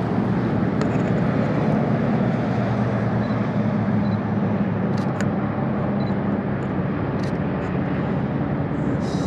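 A steady, low engine drone with a broad rushing hiss behind it, and a few faint clicks about five and seven seconds in.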